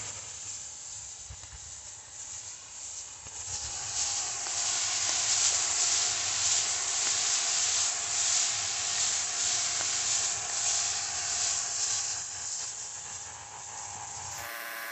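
Hose-fed pressure spray gun hissing steadily as it sprays a mist of liquid into tomato foliage, growing louder after about four seconds and easing off near the end.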